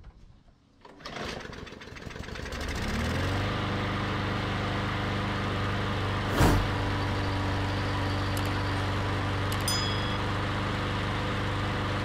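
Briggs and Stratton engine on a walk-behind lawn mower, pull-started after its plastic carburetor was cleaned of a clog. It catches about a second in, revs up over the next couple of seconds, then settles into steady running. A single sharp click about halfway through is the loudest moment.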